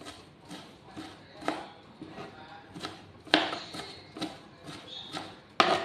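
Kitchen knife chopping on a plastic cutting board, mincing food in quick, irregular strokes about two a second. The hardest knocks come about three seconds in and again just before the end.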